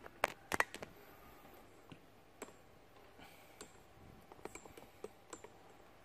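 Faint, sparse clicks and taps: a quick cluster of sharper clicks in the first second, then single ones about every second.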